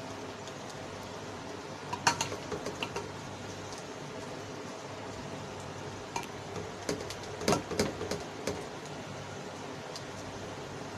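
Serving spoon clinking and scraping against the pot and platter as biryani rice is dished out. A short cluster of clinks comes about two seconds in, and a busier run from about six to eight and a half seconds, over steady background noise.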